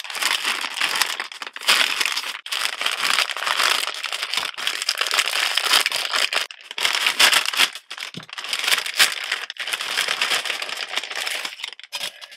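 Plastic food bags of pot stickers and broccoli crinkling and rustling as they are handled and opened, with brief pauses in between.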